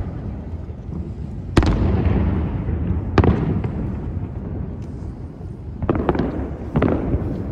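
Distant aerial firework shells bursting: four sharp booms, the first about a second and a half in, one at about three seconds, and two close together near the end. Each trails off in a long low rumble.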